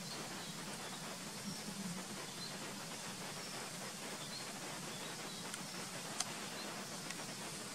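Quiet forest ambience: a steady hiss with a faint low hum, small high chirps scattered throughout, and one sharp click about six seconds in.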